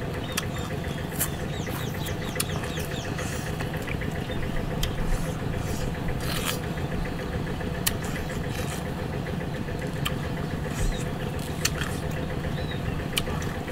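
A small engine running steadily, with sharp clicks and crunches scattered throughout as cooked food is torn apart by hand and chewed.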